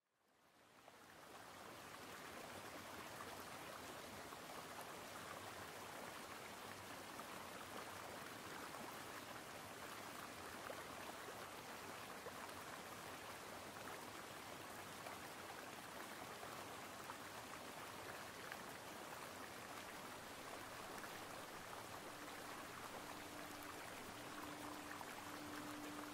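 Steady rushing sound of running water, like a stream, fading in over the first couple of seconds and holding even. Near the end a single sustained low tone joins it.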